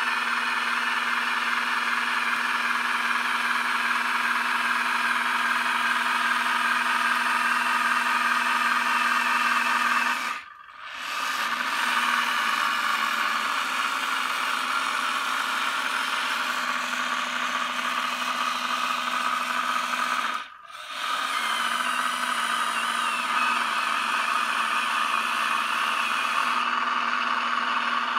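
Small electric gear motors of a 1/35-scale RC Maus model tank whirring steadily as it drives and turns on its tracks. The whir stops briefly twice, about ten and twenty seconds in.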